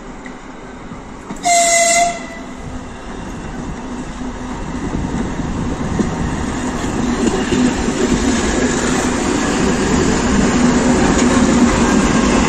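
A 2TE116 two-section diesel locomotive sounds one short horn blast about a second and a half in. Then its diesel engines and running gear rumble louder and louder with a steady low hum as it approaches and passes close by.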